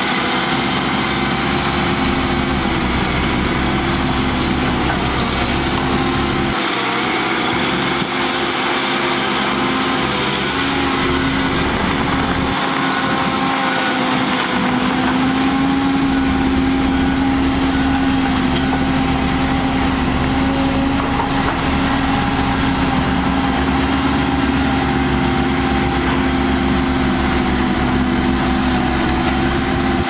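Diesel engine of a Komatsu D31PX crawler bulldozer running steadily as it pushes wet soil, with the engines of other earthmoving machines running behind it. A steady engine note that grows a little stronger through the middle.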